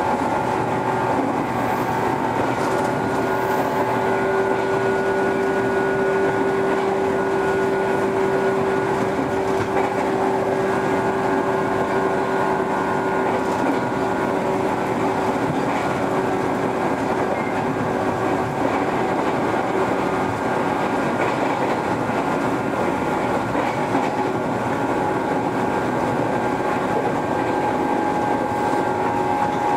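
Running noise of a 413 series electric train cruising at a steady speed: a steady whine of even pitch from the running gear over the rumble of the wheels on the rails, with some clatter over rail joints.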